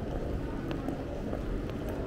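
Busy city street ambience: a steady low rumble of traffic and crowd noise, with a few faint clicks.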